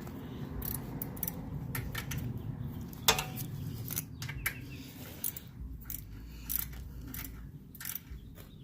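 Irregular metallic clicks and clinks of a socket ratchet and hand tools working the oil drain plug on a mower engine.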